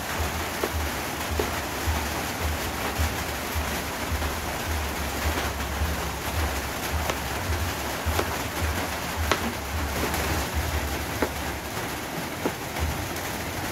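Kitchen knife cutting through firm peeled vegetable on a plastic cutting board: sharp, irregular taps about once a second. Behind it, a steady hiss of rain.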